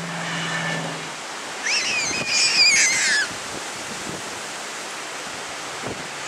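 Strong wind rushing over the microphone in a steady noise, with a child's high-pitched squeal, wavering in pitch, from about one and a half to three seconds in.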